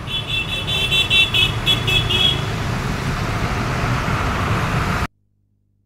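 Road traffic on a flooded street: steady vehicle and road noise, with a rapid run of high-pitched beeps for about the first two seconds. The sound cuts off abruptly about five seconds in.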